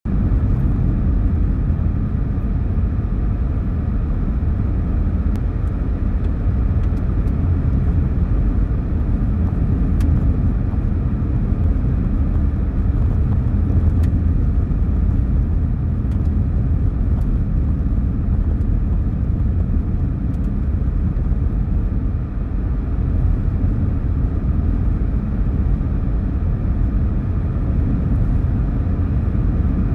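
Steady low rumble of a car's Starfire M+S RSW 5.0 tires rolling on a snow-packed road, heard from inside the cabin.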